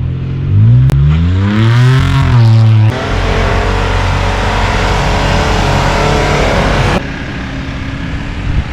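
Off-road vehicle's engine revving up sharply and holding high. About three seconds in it gives way abruptly to a loud rushing noise that cuts off near seven seconds, leaving the engine running lower.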